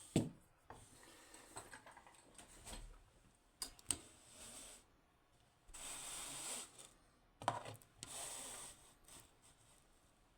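Faint handling sounds of a lock and its picking tools: a few light clicks and knocks, and two short rubbing scrapes about six and eight seconds in.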